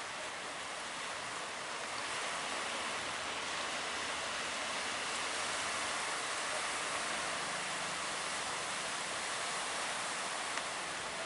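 Steady rushing hiss of surf and breaking water, with no engine or voice standing out.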